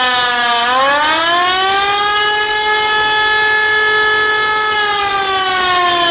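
Loud wailing air-raid siren. The pitch dips briefly at the start, rises to a held high note for a few seconds, then begins a slow fall.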